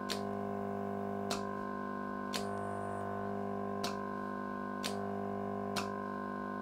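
Small diaphragm air pump of the aquarium type humming steadily as the vacuum source for an SMD pickup tool, with six sharp clicks about a second apart from the solenoid valve switching the suction on and off as parts are picked up and released.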